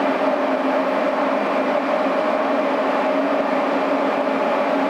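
Steady mechanical hum with a rushing noise and a constant low drone, unchanging throughout: shop machinery running.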